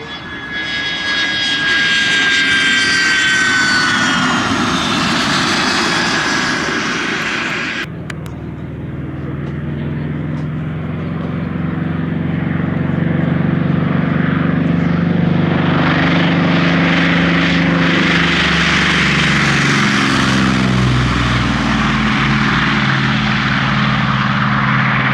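A jet aircraft passing with a high whine that falls in pitch. About eight seconds in, it cuts abruptly to a piston-engined propeller aircraft flying by with a deep, steady engine drone. The drone swells in the middle and drops in pitch near the end as the plane passes.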